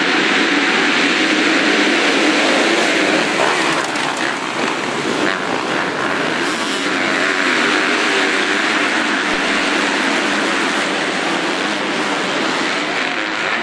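A pack of MX2 motocross bikes at high revs all at once, leaving the start and racing: a dense, loud mass of engine noise with revs rising and falling.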